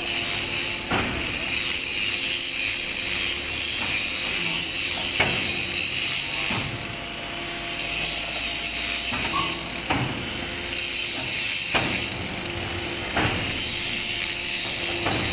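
HBY4-10 automatic compressed earth brick machine running: a steady hum and hiss, with sharp knocks and clanks every few seconds as the press cycles and the pressed bricks are handled.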